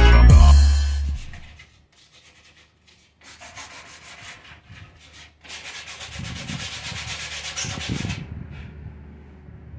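Music ends about a second in, then sandpaper rubs back and forth over the speaker box in repeated strokes. A louder, steadier run of sanding from about halfway stops abruptly near the end.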